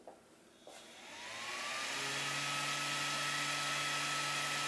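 Ender 3 V2 3D printer switched on: a small click, then the hot end cooling fan spins up with a rising whine and settles into a steady whir. The fan runs continuously whenever the printer is powered.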